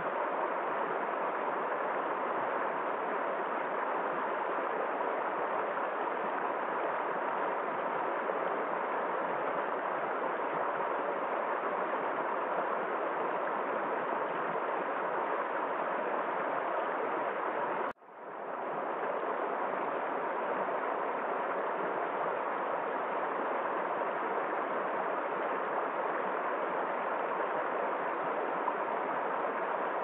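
A shallow, rocky river rushing steadily over stones in a continuous watery hiss. A little past halfway the sound cuts out for an instant and swells back within about a second.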